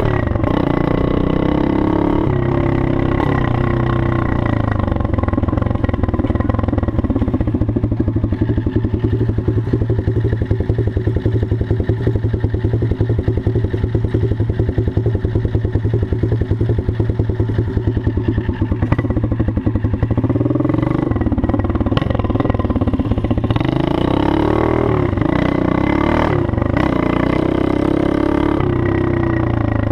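Open-piped 110cc four-stroke single-cylinder pit bike engine, a tuned Honda-type unit with a 24 carburettor and a gutted exhaust. It revs briefly, settles into a steady, fast-pulsing idle for most of the middle, then revs up and down repeatedly near the end as the bike pulls away.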